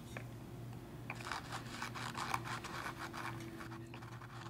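A cotton swab wet with rubbing alcohol scrubbing old foam and glue residue off the edge of an 8-inch woofer cone: a quick run of scratchy rubbing strokes starting about a second in and stopping near the end, over a faint steady hum.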